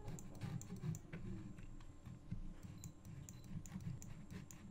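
Irregular light clicks from a computer mouse and keyboard, over a low steady background hum.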